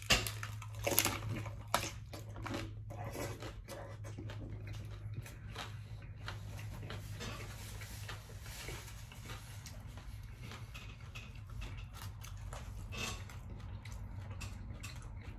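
Crunchy bites into a hard-shell taco: a few sharp crackles in the first two seconds, then quieter chewing.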